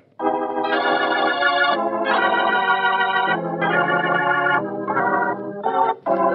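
Organ music bridge of three long held chords, then a string of shorter chords, marking a scene change in an old-time radio drama.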